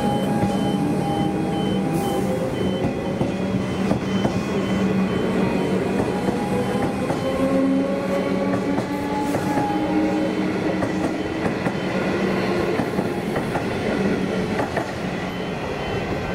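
Comeng electric multiple unit pulling out of the platform, its traction motors whining in several slowly rising tones as it gathers speed over a steady low hum and wheel-on-rail rumble; the sound eases slightly near the end as the last car clears.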